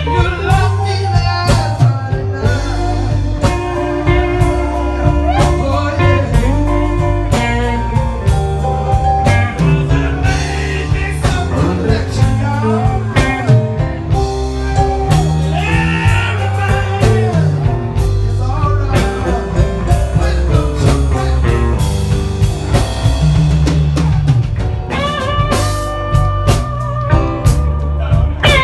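Live blues band playing: a woman singing lead over electric guitar, electric bass and a drum kit.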